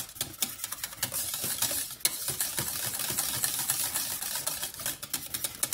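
A whisk beating grated Parmesan into a thick béchamel sauce in a saucepan. Its wires rattle and tap against the pan in rapid, irregular clicks.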